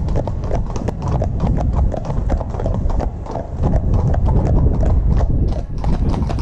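Several horses' hooves clip-clopping on a tarmac lane, a close, dense run of overlapping strikes over a steady low rumble.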